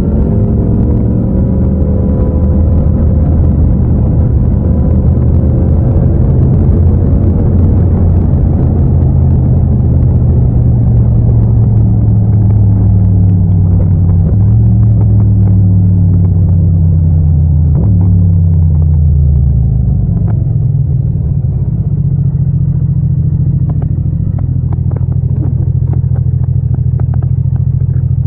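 Yamaha MT-07's 689 cc parallel-twin engine running under way at steady revs. About two-thirds through, the engine note falls as the bike slows, then it runs steadily at lower revs.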